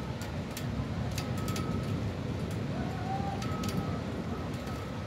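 Steady rain, with irregular sharp ticks of drops striking something close by over a low, steady rumble. A few faint short whistles and one brief rising-then-falling call sound through it.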